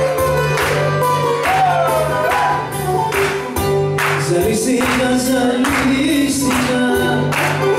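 Greek music with a singing voice over a sustained bass and a regular beat.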